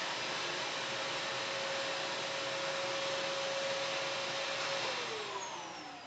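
Vacuum cleaner running with a steady whine, then winding down near the end: the pitch falls and the noise drops as the motor slows.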